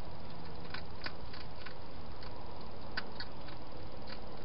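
Wild hedgehog feeding at a bowl: irregular small crunching clicks from its chewing, about nine in four seconds, over a steady background hiss.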